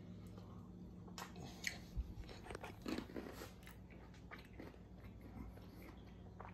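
A man chewing a bite of grilled steak dipped in wasabi sauce, mouth close to the microphone: faint wet smacks and soft clicks, busiest from about one to four seconds in.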